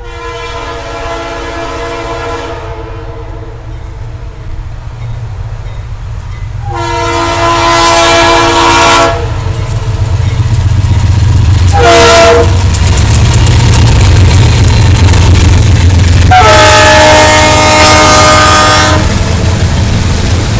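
Leslie RS3L three-chime air horn on a GE CW40-8 diesel locomotive sounding four blasts, long, long, short, long: the standard grade-crossing warning. Underneath, the locomotive's diesel engine and the train rumble, growing louder as it approaches.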